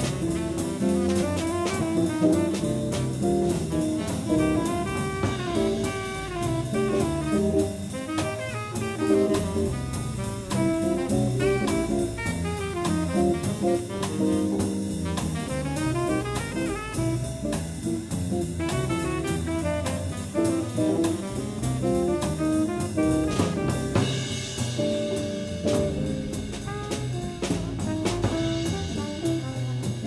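Live jazz quintet: a tenor saxophone solos over archtop jazz guitar, double bass and drum kit.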